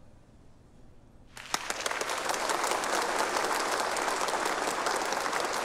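A large crowd applauding in a hall. After a brief hush, the clapping starts suddenly about a second and a half in and goes on steadily.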